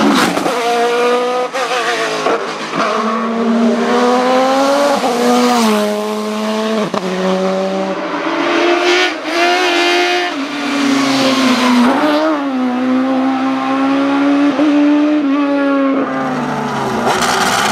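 Hillclimb race car engine running hard, its pitch climbing and then dropping sharply with each gear change, several times over.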